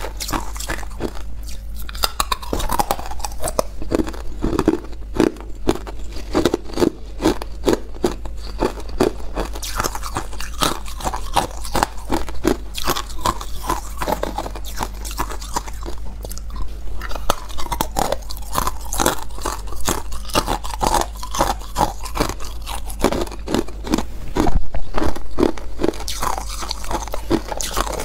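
Hard clear ice being bitten and chewed close to the microphone: a dense, continuous run of sharp crunching and cracking.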